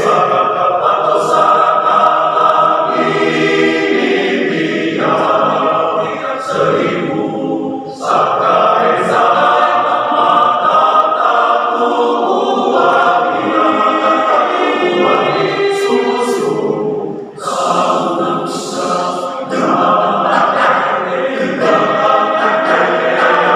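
Men's choir singing unaccompanied in several parts, with two brief breaks between phrases, about eight seconds in and again after seventeen.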